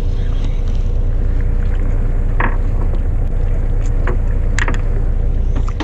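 Fishing boat's engine running steadily with a low rumble and a steady hum, with two brief sharp clicks about two and a half and four and a half seconds in.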